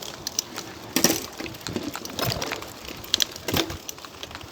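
Bicycle drivetrain on a forest ride making repeated sharp clicks and cracking crunches, loudest about one, two and a half and three and a half seconds in. It sounds like something breaking, but the rider puts it down to the gear adjustment, not a breakage.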